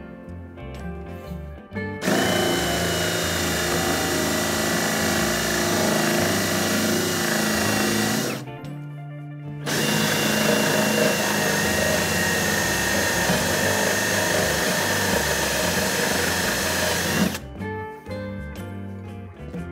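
Cordless drill boring a 1 3/8-inch hinge cup hole into a cabinet door, running steadily in two long stretches with a short pause between them. Background music plays underneath.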